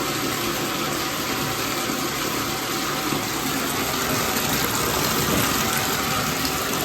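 Shower running: a steady rush of water spray.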